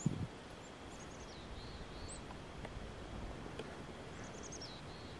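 Small songbirds calling faintly: scattered high chirps, a few arching notes, and a quick run of falling notes about four and a half seconds in.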